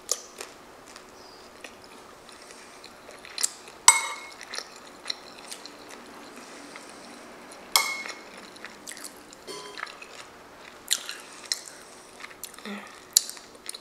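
Metal spoon clinking and scraping against a ceramic bowl while scooping lasagna, with two sharp ringing clinks about four and eight seconds in and lighter taps between. Soft chewing and mouth noises close to the microphone.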